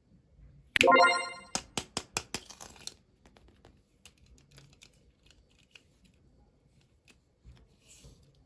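Toy packaging and plastic parts being handled during an unboxing. A loud, ringing pitched snap comes about a second in, followed by a quick run of sharp clicks, then faint crinkling and ticking.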